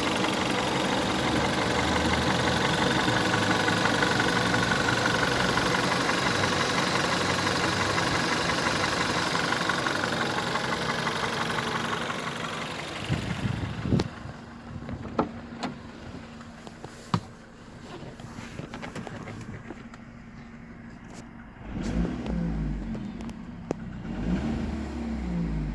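Volkswagen 1.4 TSI (CAVD) petrol engine running with the loud knocking and clicking noise it makes at idle and low revs. About halfway through the sound drops to a quieter steady hum with a few separate sharp clicks.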